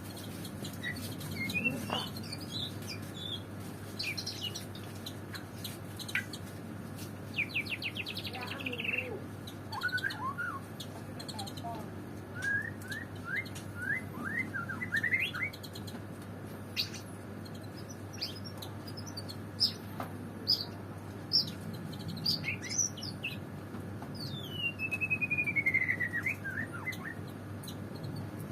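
White-rumped shama (murai batu) singing in short, varied whistled phrases, with a rapid trill and, near the end, a long falling whistle, among scattered sharp clicks. A steady low hum runs underneath.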